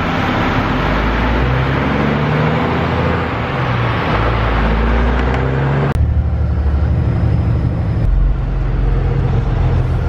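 Diesel harvest machinery running in the field: the combine and the tractor with its grain cart, engine tones rising and falling. About six seconds in, the sound cuts abruptly to a corn-loaded semi truck's diesel engine driving along, a lower, steady rumble.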